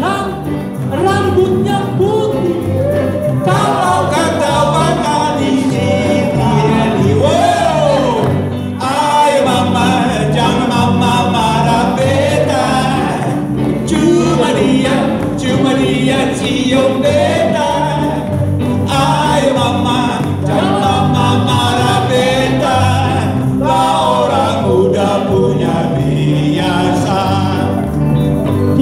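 Live band playing a song with singing into microphones, backed by electric guitars and a cajón, through an amplified sound system.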